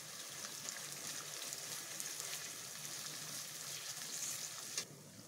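Sliced onions sizzling as they fry in hot oil in a kadai, a steady hiss with fine crackling. They are being fried only until transparent. The sizzle drops away suddenly near the end.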